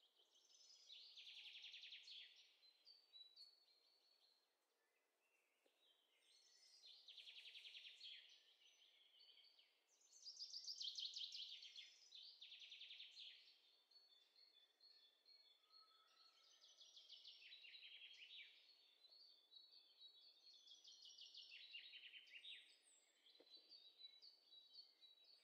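Faint songbird singing, a run of rapid trilled phrases, each a second or two long, with short pauses between them.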